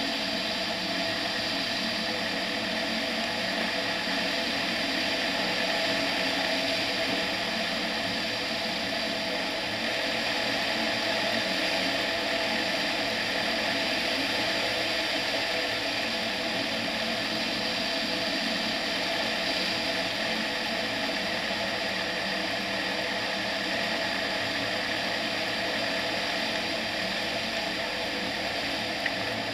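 Ultralight aircraft's propeller engine running steadily in flight, mixed with wind rushing over the externally mounted camera.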